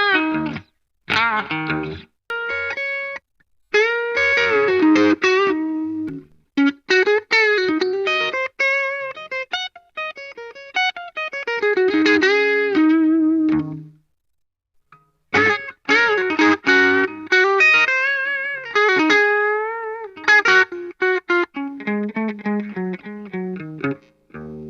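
Jcraft T-1 Telecaster-style electric guitar with Fleor Alnico V pickups, played through a Vox VT20X amplifier: single-note lead phrases with string bends and vibrato, broken by short pauses and one longer rest about two-thirds of the way through.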